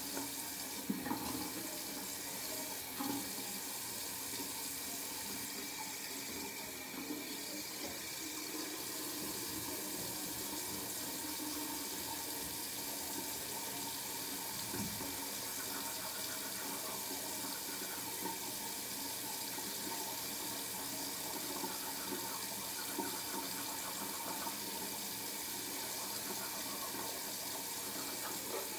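Bathroom sink tap running steadily while teeth are brushed, with a few light knocks near the start and about halfway through.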